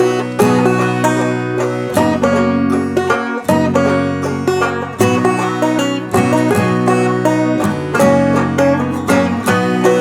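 Background music: upbeat plucked-string tune with banjo and guitar over a steady bass line.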